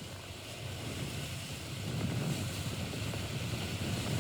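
Wind buffeting the microphone over rushing water and waves, growing louder about halfway through.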